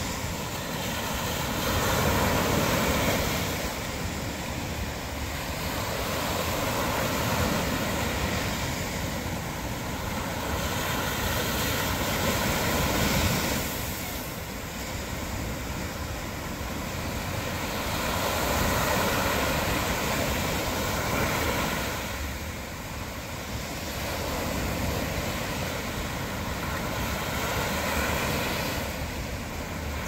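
Small ocean waves breaking and washing up a sandy beach: a steady rush of surf that swells and eases every several seconds.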